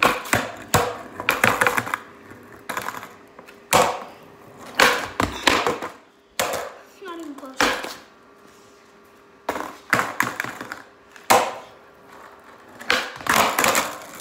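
Skateboard on a concrete floor during kickflip attempts: the deck and wheels slam and clatter down again and again in sharp knocks, with short stretches of wheels rolling between.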